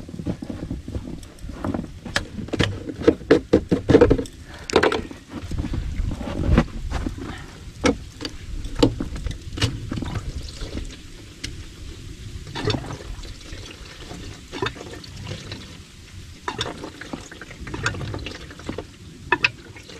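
Diesel fuel being poured into a diesel heater's fuel tank, with scattered clicks and knocks from handling the containers.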